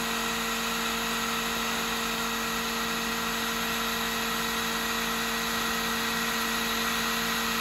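Ortur Laser Master 3 diode laser engraver running while it cuts, its air assist and fans making a steady, even hum and hiss.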